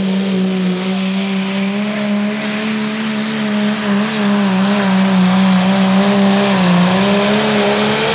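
Pro Stock pulling tractor's turbocharged diesel engine running flat out under full load as it drags the weight-transfer sled, a steady, loud, slightly wavering engine note with a faint high whistle above it.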